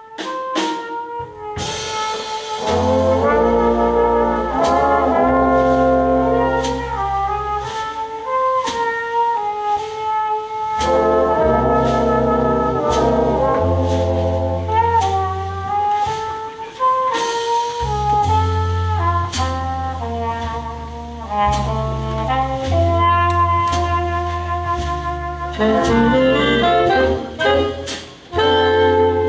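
Live big band jazz: a trumpet leads over the brass and saxophone section, with a walking bass line and drums. The full band swells in about two seconds in and drops out briefly near the end.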